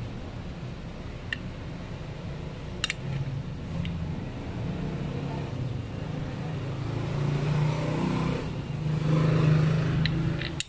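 A motor vehicle engine running steadily, growing louder near the end. A few light clicks from a plastic trimmer head and metal washer being handled and fitted onto a brush cutter shaft.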